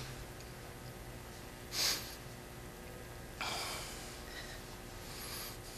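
A person sniffing sharply, about two seconds in, then a longer breath a second and a half later, over low room tone.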